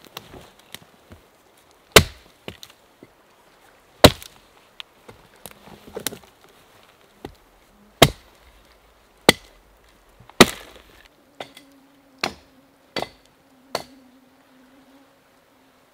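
Axe chopping into a dry, dead fallen log: about nine sharp single chops at uneven intervals, the last few softer. An insect buzzes faintly near the end.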